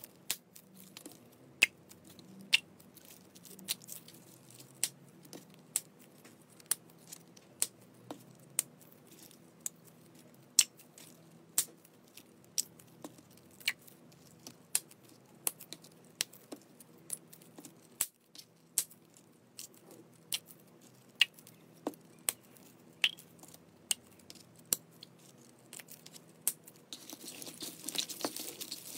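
Small plastic bags of clear blue slime being squeezed and handled: sharp clicks and crackles about once a second. Near the end comes a denser stretch of crinkling and squishing.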